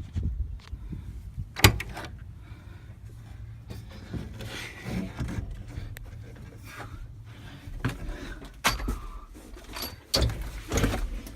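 Scattered knocks and clunks inside a tractor cab, as of a door and fittings being handled, the sharpest about two seconds in, over a low rumble; no engine is running.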